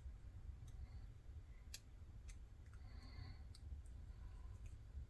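Faint, irregular clicks of a lock pick setting the pins, one at a time, in an Almont ReKey padlock under tension.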